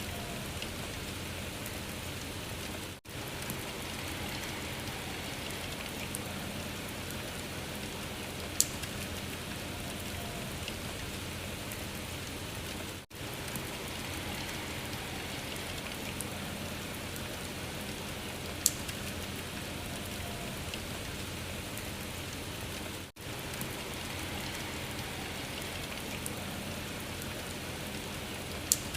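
Steady rain hiss that seems to repeat on a loop about every ten seconds. The sound briefly drops out three times, and a sharp click comes three times.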